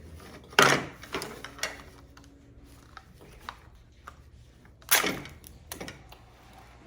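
Small plastic toy pieces and packaging being handled: a few sharp clicks and short rustles, the loudest about half a second in and about five seconds in.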